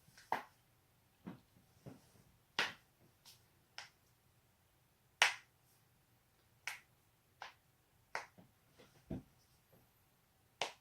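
Human joints being cracked by the person himself: about a dozen sharp pops at irregular intervals, the loudest about halfway through, with one duller, lower thump near the end.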